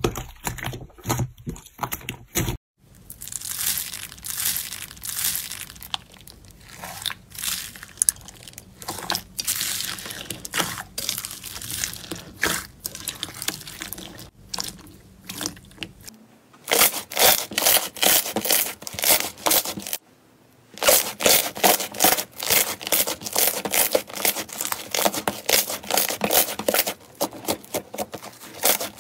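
Slime being kneaded, squeezed and poked by hand, giving rapid sticky clicks, pops and crackles as trapped air bursts. Some of the slime has foam beads mixed in that crunch. The sound breaks off briefly where one clip gives way to the next.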